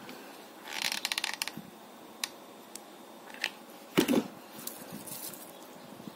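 Small clicks and rattles from hand crafting with a hot glue gun and a metal rhinestone mesh strip on felt. A quick run of clicks comes about a second in, then scattered single ticks and a soft knock about four seconds in.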